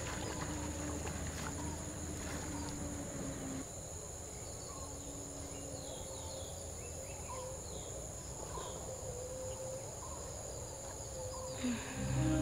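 Steady high-pitched drone of insects, with a few faint bird chirps in the middle.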